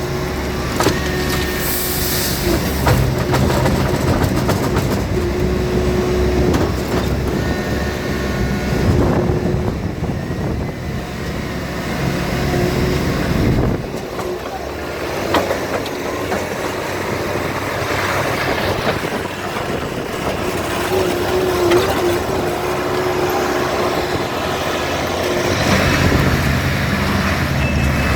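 2016 Bobcat T450 skid steer running, its diesel engine giving a steady low drone with an on-and-off higher whine and scattered clanks. The engine note drops about halfway through and rises again near the end.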